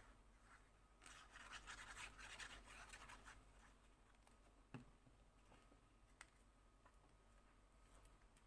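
Faint scratchy rubbing of a glue stick stroked across the back of a square of paper for about two seconds, followed by a single light click and a faint tick.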